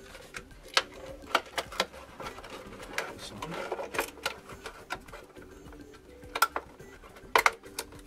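Irregular clicks and knocks of hands working at the loosened cap of a heating-system dirt filter on the pipework, a dozen or so sharp taps spread unevenly, over a faint steady hum.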